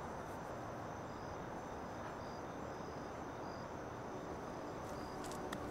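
Crickets chirping in a soft, steady night ambience: a thin continuous high trill with short, evenly repeating chirps over a low hiss.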